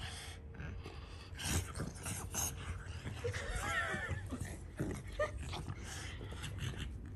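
Two French bulldogs play-fighting: short snorts, grunts and heavy breathing, with a brief high whining cry about halfway through.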